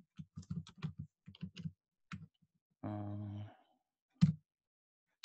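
Typing on a computer keyboard: a quick run of key presses, one more key, then a loud single key click just after four seconds. A short voiced hum from the typist comes about three seconds in.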